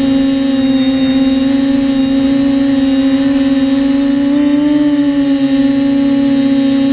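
TBS Discovery Pro quadcopter's electric motors and propellers whining steadily, heard through the drone's onboard camera. The pitch rises a little past halfway, then settles back.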